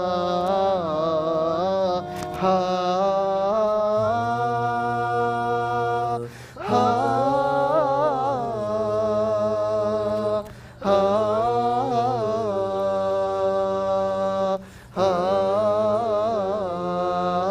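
Unaccompanied male voices singing a nasheed chorus in layered parts on wordless 'aahs': a held low bass line under an ornamented melody. The phrases are broken by three brief breath pauses, about six, ten and fifteen seconds in.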